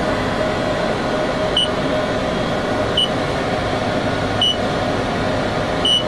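Car wash pay-station keypad beeping as the code is keyed in: four short high beeps about a second and a half apart, over a steady background hum.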